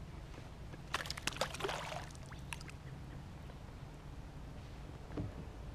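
Water splashing in a quick cluster about a second in, as a hooked smallmouth bass thrashes at the surface beside the kayak, over a steady low rumble.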